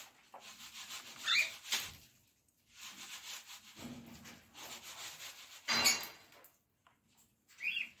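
Cockatiel pecking and rummaging through soaked seeds in a clay dish, its beak scraping and clicking against the food and the dish, with a louder clatter about six seconds in. It gives a short chirp about a second in and another near the end.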